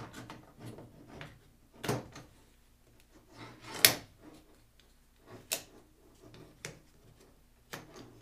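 Aluminium rod rack parts being fitted together by hand: about five sharp clicks and knocks, the loudest about four seconds in, as a crossbar's spring push pins snap into the holes in the legs.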